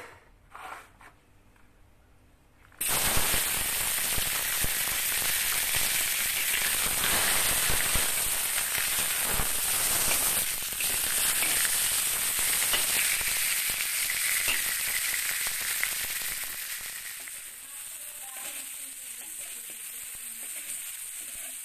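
Pork belly cubes frying in hot oil in a wok: a dense sizzle with spitting crackles that starts suddenly about three seconds in and eases somewhat later on. Near the end a metal spatula scrapes and turns the meat in the pan.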